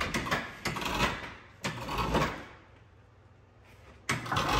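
Clattering knocks and scraping of metal parts being handled. It goes quiet for about a second and a half past the middle, then starts again near the end.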